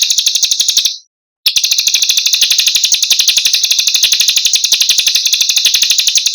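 Small songbird's rapid rolling trill, an even run of high, sharp notes at about fourteen a second, broken by a short pause about a second in before a second long run begins.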